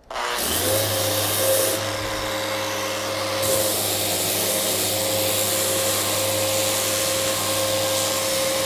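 Festool Rotex random orbital sander in aggressive mode switched on and sanding the epoxy-and-fiberglass surface of a kayak hull with a 60-grit disc. It makes a steady hum with a steady whine.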